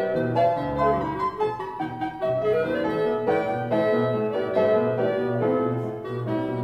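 Background classical music: a clarinet playing a slow folk-song melody over piano accompaniment.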